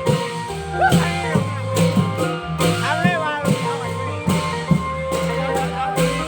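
Thai klong yao long-drum band playing: regular drum strikes under a melody with sliding, bending notes.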